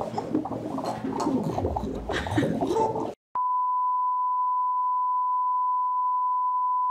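A few seconds of voices, then a brief dropout and an abrupt switch to a steady single-pitch test tone at about 1 kHz. This is the standard reference tone that goes with colour bars.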